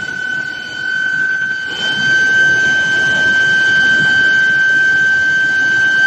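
Induction billet heating furnace running: a steady high-pitched whine with fainter overtones, creeping slightly up in pitch and growing a little louder about two seconds in, over a rough clattering noise of the billet line.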